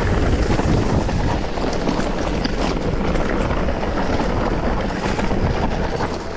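Wind buffeting the microphone and a mountain bike rattling over rough, dry ground on a fast descent: a steady loud rush with a deep rumble and many small knocks and clicks.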